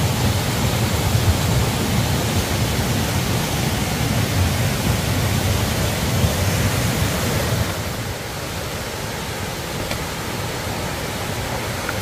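Mountain stream rushing over rocks: a steady rush of water that drops a little in level about eight seconds in.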